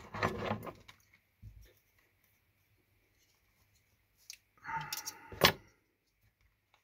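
Small fly-tying tools handled at the bench: a short clatter in the first second and a low thud, then a rattle and a sharp metallic click about five and a half seconds in.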